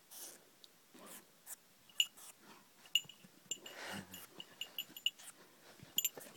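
Malaklı Anatolian shepherd dog sniffing and snorting with its nose at a mouse, with a string of short, sharp high squeaks from about two seconds in.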